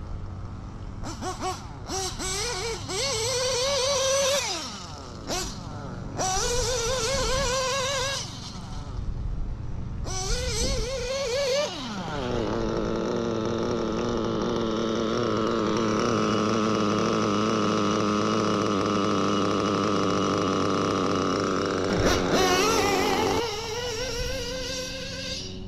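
O.S. B7TT nitro engine with a Hipex 2108 tuned pipe revving in three short throttle bursts, the pitch climbing through each with breaks between; about twelve seconds in the pitch drops to a steady, high-pitched idle for some ten seconds, then one more brief rev near the end.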